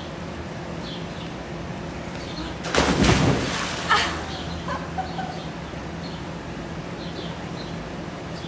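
A person jumping into a swimming pool: one big splash about three seconds in, followed a second later by a woman's short laughing shriek. Small birds chirp faintly throughout.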